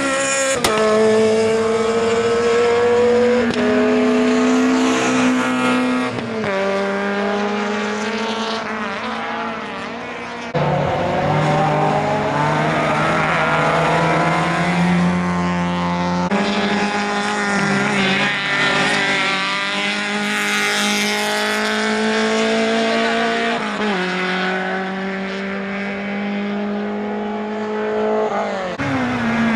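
Rally cars at full speed on a circuit, their engines revving hard. The engine note jumps up and down with each gear change.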